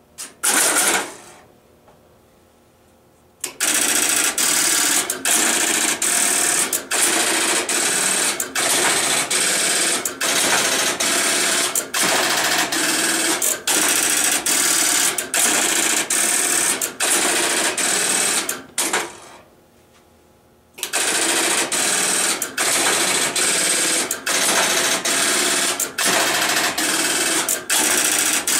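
Western Electric step-by-step (Strowger) line finder switches running: a loud, rapid mechanical clatter of stepping magnets and relays driving the wipers across the contact bank. There are a few sharp clicks at the start, then two long runs of clatter, about fifteen and eight seconds long, with a pause of about two seconds between them.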